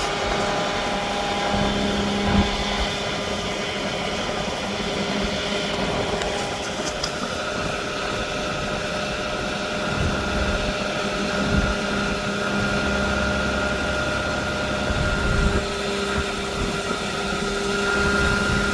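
Mack front-loader garbage truck's engine running steadily at idle, with a steady whine over it and a few short low thuds.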